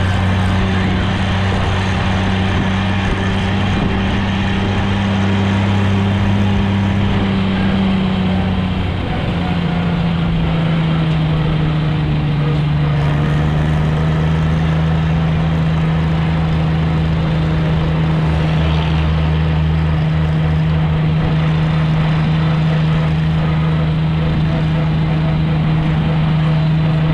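Tractor engine running steadily under way, heard up close from the tractor itself. About nine seconds in the engine note drops a little lower as it slows slightly, then holds steady.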